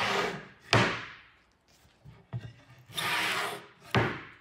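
Wooden slab knocked down onto a plywood tabletop: a sharp wooden knock about a second in, a scraping slide around three seconds, and a second knock near the end.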